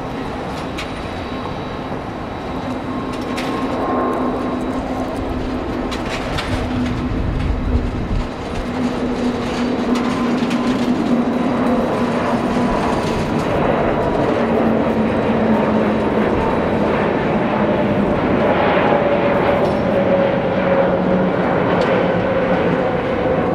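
Airbus A330-200 airliner's jet engines at takeoff power: a steady rushing noise with several engine tones that slowly fall in pitch, growing louder over the first several seconds.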